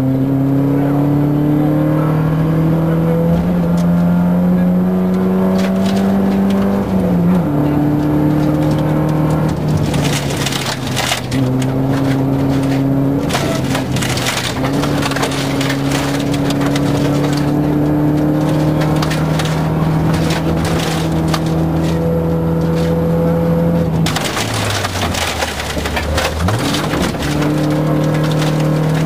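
Volvo 940 rally car's engine heard from inside the cabin, pulling hard on a gravel stage. Its pitch climbs slowly and drops with a gear change about seven seconds in, holds steady, then falls and climbs again near the end. Loose gravel crackles against the car's underside in stretches.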